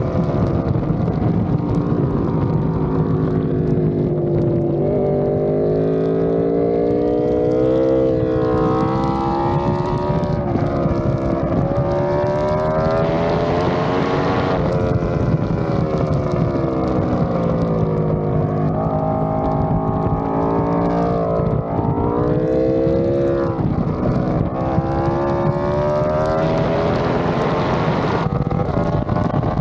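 Aprilia RSV4 RF's V4 engine at race pace, its pitch climbing under acceleration and dropping away several times through shifts and braking. Wind rushes on the microphone throughout.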